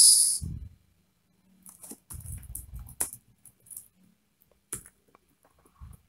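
Scattered keystrokes on a computer keyboard, a few quick taps at a time with short pauses between.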